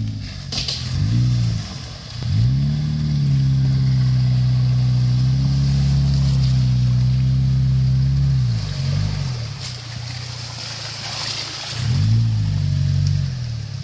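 Suzuki Jimny JB43's engine revving as it crawls through a deep muddy puddle: a couple of short blips, then revs held high for about six seconds, a drop, and another rise near the end. Muddy water sloshing and splashing around the tyres.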